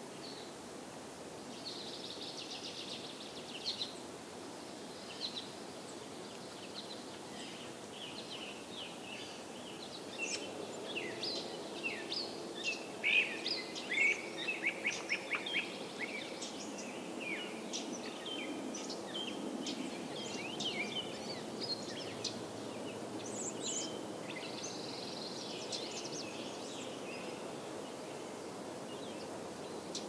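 American goldfinches singing: a long run of quick, varied twittering notes, loudest in the middle, with a buzzy note near the start and another near the end, over a steady low background hum.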